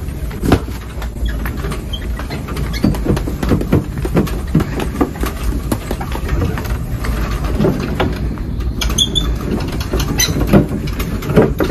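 Electric mobility scooter rolling along a smooth store floor: a steady low rumble from its drive, with frequent small rattles and knocks.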